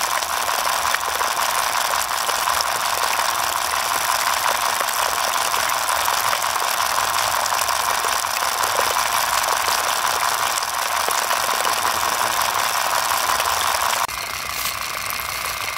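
Miniature model diesel water pump running steadily, a busy whirring with fine ticking and no deep engine note. About 14 seconds in, the sound drops abruptly to a slightly quieter level.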